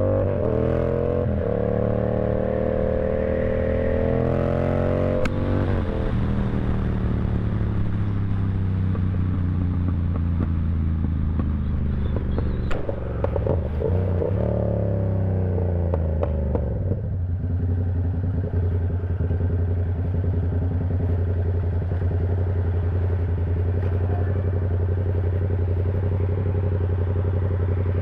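Yamaha R7's 689 cc parallel-twin engine under way, pulling up through the revs for the first few seconds and changing gear about five seconds in. It climbs again in the middle, then drops about two-thirds of the way through to a steady lower note.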